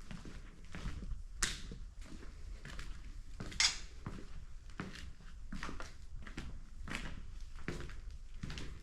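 Footsteps on a hard floor with small scrapes and clatters, and two louder sharp clacks about a second and a half and three and a half seconds in.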